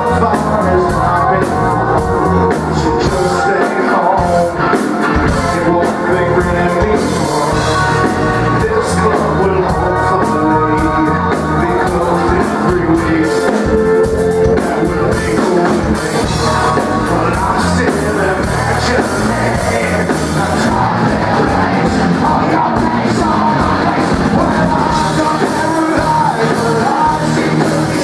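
Rock band playing live with sung vocals, distorted electric guitars and drum kit, loud and continuous.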